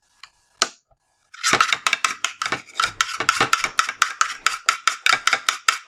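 Spoon stirring the shampoo, shower gel and salt slime mixture in its container, clinking against the side in a fast, even rhythm of about five strokes a second, starting about a second and a half in after a brief pause.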